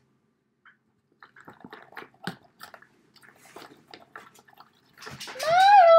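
A wooden skewer stirring white school glue and water in a plastic tub, making faint, irregular light clicks and wet squishes. Near the end a woman's loud, drawn-out call rises and then holds.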